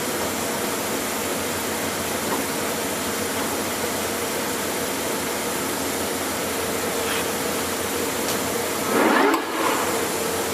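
Clausing Colchester 25-inch engine lathe running on its 30 hp main drive, its spindle and gearbox turning with a steady whine. A brief louder swell comes about nine seconds in.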